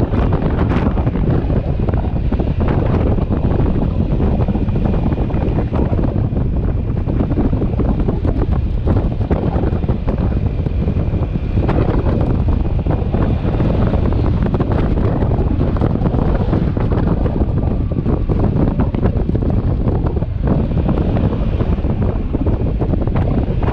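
Wind buffeting the microphone of a camera riding on a moving motorcycle: a loud, steady low rumble that drowns out the engine.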